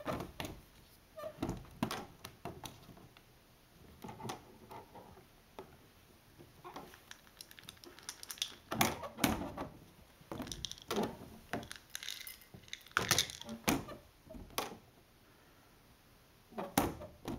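Irregular plastic clacks and rattles in bursts with short pauses: a cat pushing at the hinged plastic flap of a pet door, with dry cat kibble rattling in a plastic scoop.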